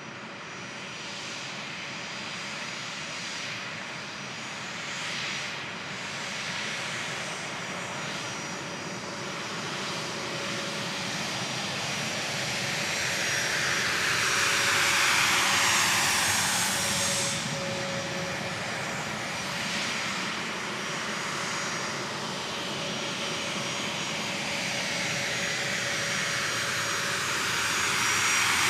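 A-10 Thunderbolt II jets taxiing, their TF34 turbofan engines running with a steady rushing whine. It swells to its loudest around the middle as a jet passes close, its whine falling in pitch, and rises again near the end.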